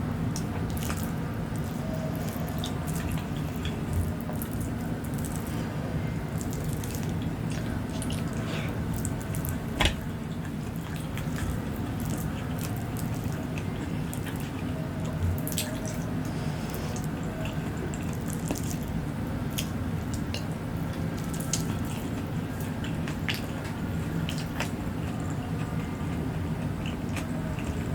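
Close-miked wet chewing and smacking mouth clicks of someone eating tempe penyet with sambal, with one louder knock about ten seconds in, over a steady low hum.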